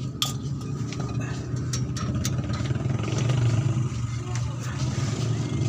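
A vehicle engine running steadily at idle, with scattered short metallic clicks and taps of a wrench working on the clutch cover bolts.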